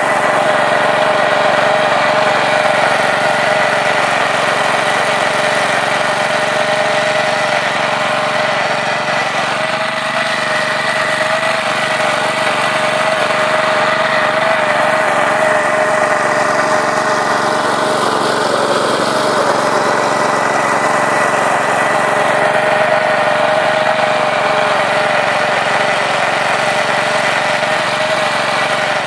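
Petrol-engined cultivator running steadily under load, its Laplosh vertical tines churning damp soil.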